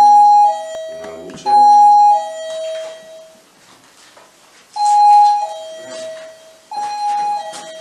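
Electronic two-tone 'ding-dong' chime of a motion-sensor alarm: a high note dropping to a lower one, sounding twice in quick succession, then twice more after a pause.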